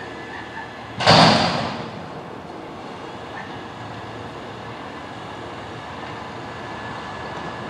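Front-loader garbage truck emptying a raised dumpster into its hopper: the truck's engine runs steadily, and about a second in there is one loud crash from the dumpster being emptied that dies away within a second.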